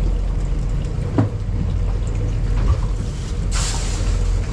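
Steady low rumble aboard an offshore fishing boat at sea, with a short hissing wash of water against the hull about three and a half seconds in.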